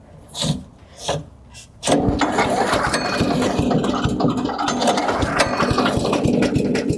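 Small gas engine of a 3-inch wood chipper being pull-started: two short pulls of the recoil cord, then the engine catches about two seconds in and runs steadily.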